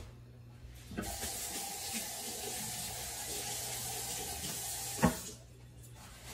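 Kitchen tap running in a steady stream for about four seconds, starting with a click and cut off with a sharp knock.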